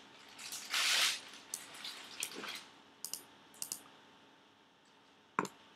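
Scattered clicks of a computer mouse and keyboard, the sharpest one near the end, with a short breathy hiss about a second in.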